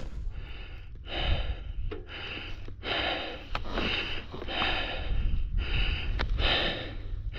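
A man breathing hard and fast, about eight heavy breaths close to the microphone: out of breath from the exertion of hauling a heavy adventure motorcycle up a steep, rocky climb.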